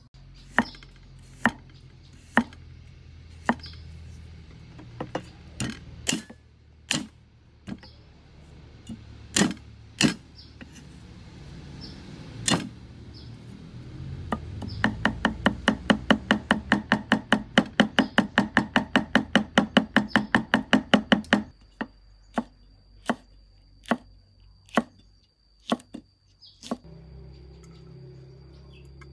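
Cleaver chopping garlic on a thick wooden chopping board. It starts with single, irregular knocks, then settles into a fast, even mincing run of about five strikes a second for some six seconds, and ends with a few spaced knocks again.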